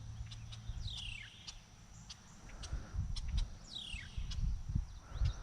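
A bird calling twice, each call a quick downward-sliding note, about three seconds apart, over a low outdoor rumble and a faint steady high hum.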